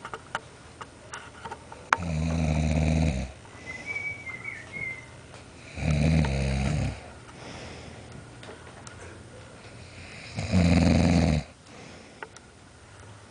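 A man snoring loudly in his sleep: three long snores, each about a second long and about four seconds apart, with quieter breathing between them. A brief faint whistle comes between the first two.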